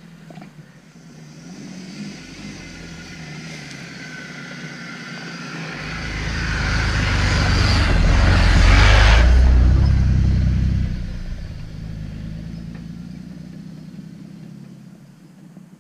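A car drives past, its engine and tyres growing louder to a peak about nine seconds in, then fading away.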